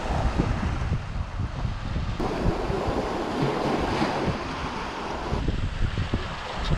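Sea surf washing over shore rocks, with wind buffeting the microphone as a low rumble. The wash of the surf is louder for about three seconds in the middle.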